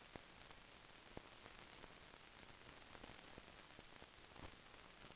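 Near silence: the steady hiss of an old film soundtrack, with a few faint, irregular clicks and pops.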